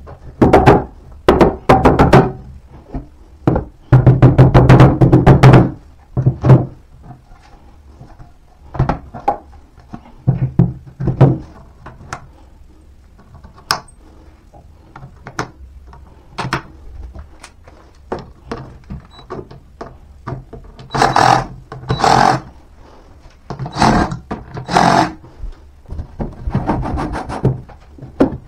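A small dumbbell used as a mallet knocking the particleboard panels of an IKEA Alex drawer unit together, in two quick runs of blows in the first few seconds. Then scattered single knocks as the panels are handled, and four longer scraping sounds near the end.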